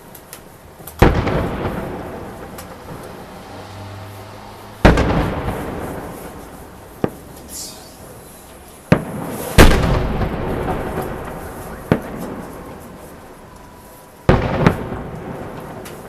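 Festive fireworks salute: four heavy aerial shell bursts, each a deep boom that rolls away over a few seconds, with several sharper single cracks in between.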